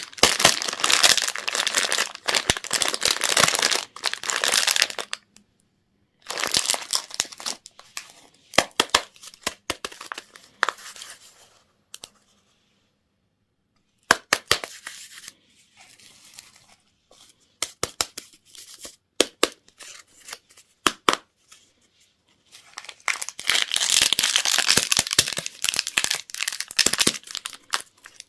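Candy wrappers and packaging being crinkled and torn open by hand. There are dense stretches of crackling, a couple of seconds of silence near the middle, then scattered sharp crackles and clicks before a last dense stretch of crinkling near the end.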